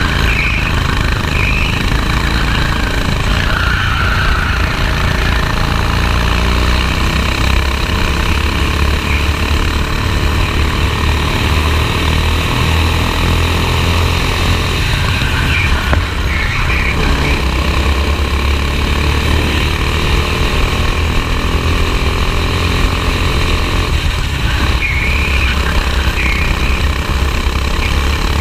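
Go-kart engine heard from on board, running steadily at racing speed as a loud, constant low drone.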